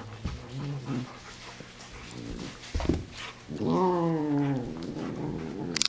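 German Shepherd dogs play-fighting, vocal and mouthy: a few short low growls, then one longer pitched growl lasting about a second, with a brief knock of bodies or paws just before it.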